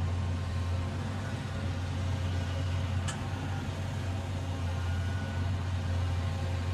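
Diesel engine of a Caterpillar hydraulic excavator running with a steady low drone while the machine swings and works its boom and arm, with a brief click about three seconds in.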